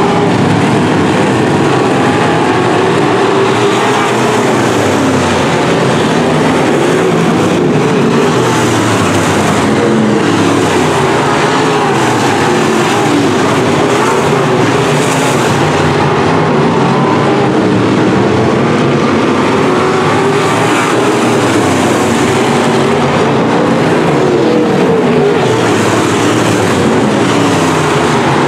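A field of B-Modified dirt track race cars running hard at racing speed, their V8 engines overlapping in a loud, continuous din, with many engine notes rising and falling in pitch as the cars accelerate and lift.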